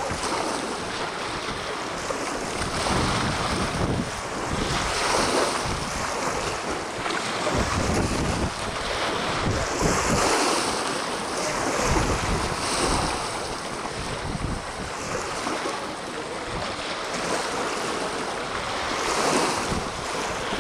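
Wind gusting on the microphone in low rumbles, over choppy harbour water sloshing and lapping against the boat hulls and quay wall in uneven surges.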